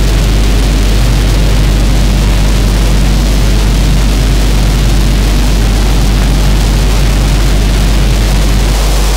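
Harsh noise music: a loud, dense wall of hiss over a steady deep hum, unbroken and unchanging throughout, built from electronic interference.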